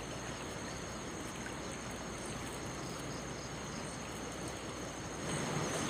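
Swift, flood-swollen river flowing past: a steady rush of water, a little louder near the end.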